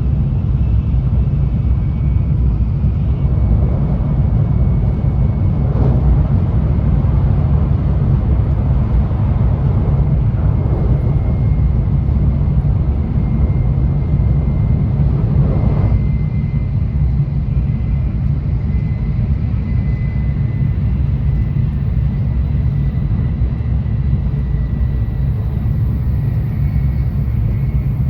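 Interior running noise of a Tokaido Shinkansen N700A train: a steady low rumble of the running gear carried through the car body. A faint high whine sits above it in the second half.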